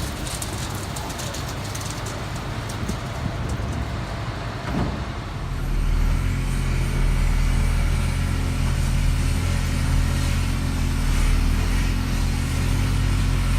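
A large vehicle's engine running steadily, its low hum growing louder about five and a half seconds in and then holding.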